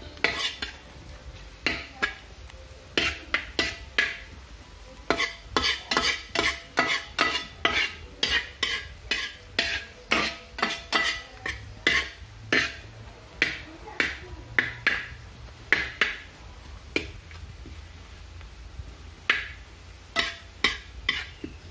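Onions being stirred in a frying pan as they sauté. The utensil scrapes and knocks against the pan in quick, irregular strokes, with a pause of a few seconds late on before the stirring resumes.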